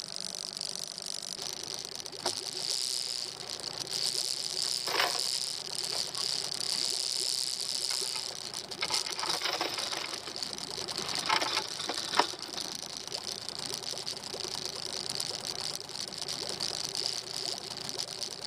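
Steady high-pitched drone of insects from the bush, over a low steady engine hum. A few short knocks sound between about two and twelve seconds in.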